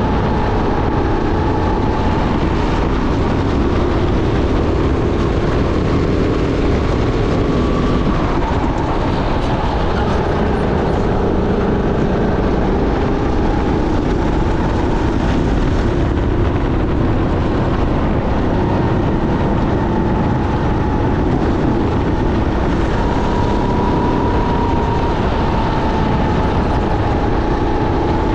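Sodi SR5 rental kart's engine running hard under racing throttle, heard from on board, its pitch drifting slowly up and down through the corners over a heavy, steady low rumble.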